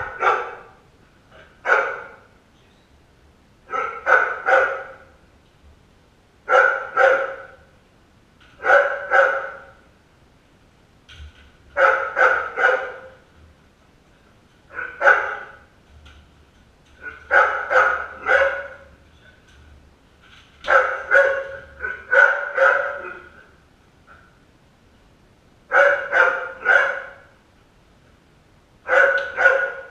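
A dog barking in short groups of one to three barks, a group every two to three seconds.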